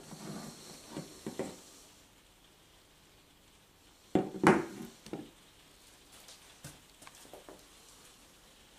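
Handling noise of a Weihrauch HW45 air pistol on a tabletop: scattered knocks and scrapes as it is picked up and turned. The loudest cluster of knocks comes about four and a half seconds in, followed by a few light clicks.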